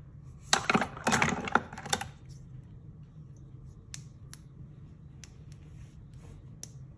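Hard fidget toys clattering together as a hand rummages through a drawer of them, then about half a dozen separate sharp clicks from the buttons of a small handheld fidget clicker being pressed.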